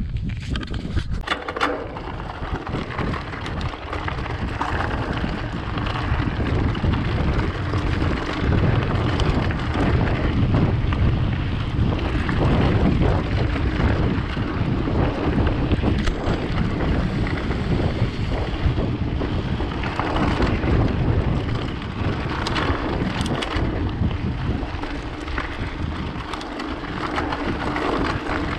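Mountain bike ridden along a rough dirt trail: wind rushing over the microphone and a steady low rumble, with frequent knocks and rattles.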